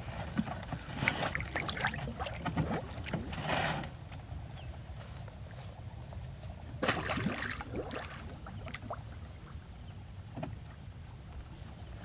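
River water splashing and sloshing as a man wades and ducks under the surface, with several splashes in the first four seconds and another about seven seconds in. A steady low rumble runs underneath.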